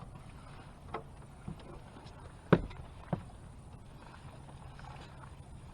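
A few sharp knocks and bumps aboard a fishing boat, the loudest about two and a half seconds in, over a low steady hum.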